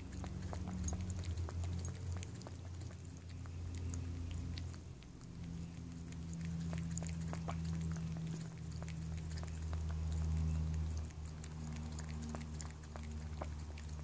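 A cat lapping liquid from a bowl: a steady run of small wet tongue clicks, over a low steady hum.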